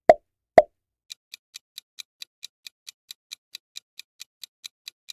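Quiz-video sound effects: two short pops as answer boxes appear, then a countdown timer ticking evenly at about four to five ticks a second.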